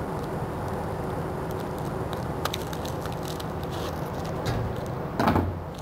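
Scissors cutting across a length of burlap, a steady coarse crunching of the blades through the fibres with small clicks, and a brief louder sound about five seconds in.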